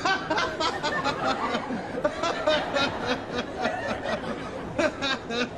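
A man's voice mumbling and snickering without clear words.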